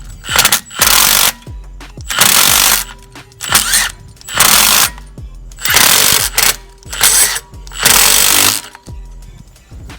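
Impact wrench driving M8 x 1.25 bolts into the threaded holes of a brake rotor in about eight short bursts, about half a second each. The bolts are jacking bolts, run in alternately to press the stuck rotor off the hub.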